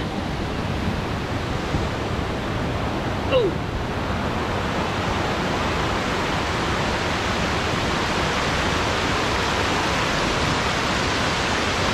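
Steady rush of river water over rocks, an even hiss that grows a little brighter in the second half. A brief falling voice-like sound comes about three and a half seconds in.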